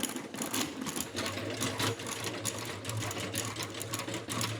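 A small machine running with a fast, even mechanical clatter; a steady low hum joins it about a second in.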